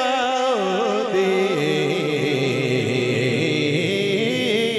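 A man singing a Punjabi devotional manqabat, stretching a single syllable into a long ornamented line with a wavering vibrato; the pitch steps down about half a second in and again about a second and a half in, then holds.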